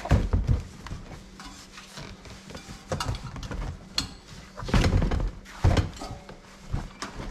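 Tire levers clinking and knocking against a motorcycle wheel rim, with rubber scuffing, as the bead of a stiff new Dunlop MX53 front tire is pried onto the rim. The knocks come irregularly, with the loudest cluster about five seconds in.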